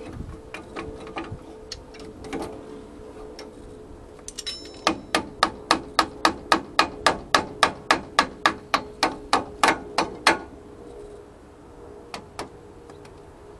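Hand tool working on a brake caliper bolt: a run of sharp metallic clicks, about four a second, for about five seconds in the middle, with softer scattered clicks before and after.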